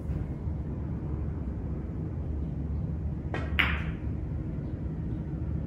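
A pool cue tip strikes the cue ball, followed a split second later by a sharp ball-on-ball click, about three and a half seconds in. A low steady room hum sits under it.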